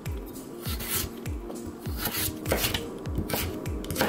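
Chef's knife slicing through a carrot and knocking on a wooden cutting board, a series of irregular sharp cuts, over background music with a steady beat.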